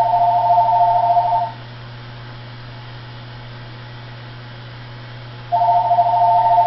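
Telephone ringing with a steady two-tone electronic ring: one ring stops about a second and a half in, and the next starts about four seconds later, each ring about two seconds long. A steady low hum runs underneath.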